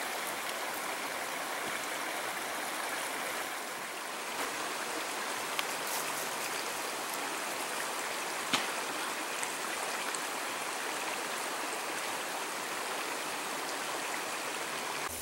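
A small mountain creek running steadily, a constant even rush of water. A single sharp click stands out about eight and a half seconds in.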